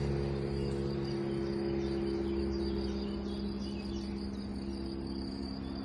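Insects chirring steadily on a high note, over a low droning hum that slowly fades.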